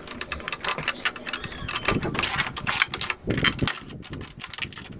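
Irregular clicking and knocking of plastic parts as an Epson L3110 printer's casing and waste ink tank are worked at by hand.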